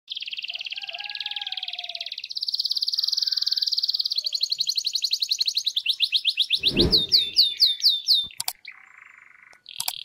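Male canary singing in its cage: rapid, even trills that switch to a new pattern every second or two, then a run of about five separate downward-sliding whistled notes, and a lower buzzy rattle near the end. A brief low thud sounds under the song about two-thirds of the way through.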